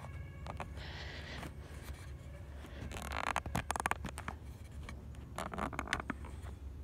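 Footsteps rustling, scraping and crackling through dry brush and leaf litter. The bursts come about a second in, around three to four seconds, and again near the end, over a low steady rumble.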